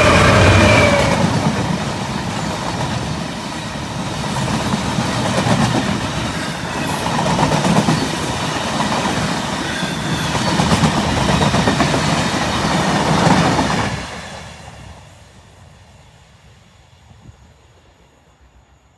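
A train passing close by, its wheels clacking over the rail joints, loud for about fourteen seconds, then fading away as it goes.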